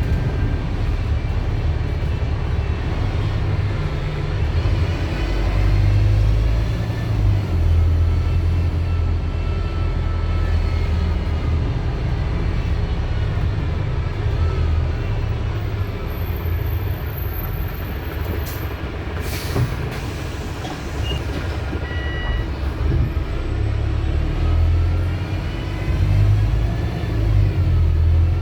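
Wright StreetDeck double-decker bus with a Mercedes-Benz OM934 four-cylinder diesel, running steadily with a deep rumble that swells and eases. Whines glide up and down in pitch throughout, and there is a short hiss of air about two-thirds of the way through.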